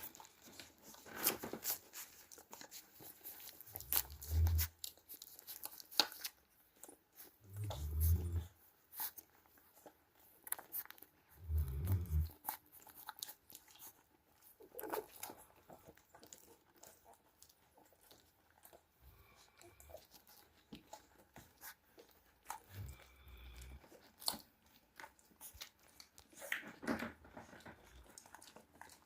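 Cane Corso puppy chewing and biting on something crunchy, with many scattered sharp clicks and crackles. A few short low thumps come about four seconds apart early on, and again later.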